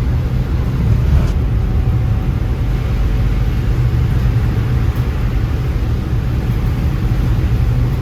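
Van driving at highway speed: a steady low rumble of engine and road noise.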